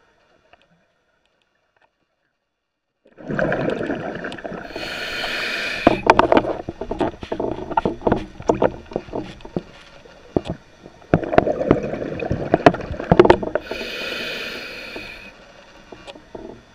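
Scuba diver's regulator breathing underwater, starting about three seconds in: two breaths, each a high hiss of air drawn through the regulator and a long run of crackling exhaled bubbles.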